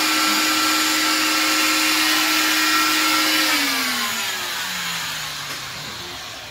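Cast saw with its attached dust-extraction vacuum running with a steady whir, then switched off about three and a half seconds in, the motor whine falling in pitch and fading as it spins down.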